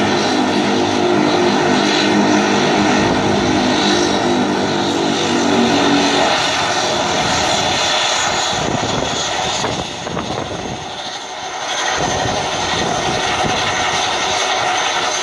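Turboprop engines of a De Havilland Canada Dash 8-300 running on the ground, loud and steady, with a low drone and a high whine. The low drone drops away about six seconds in, leaving the whine.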